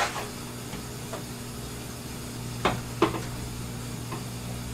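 Aquarium sump return pump running with a steady electric hum, water hissing faintly through the plumbing. Two sharp knocks come about two and a half and three seconds in.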